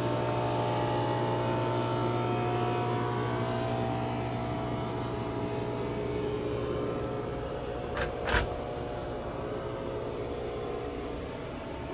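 Pool pump motor running with a steady electric hum. About eight seconds in come two knocks as the equipment closet's doors are shut, and the hum is quieter after.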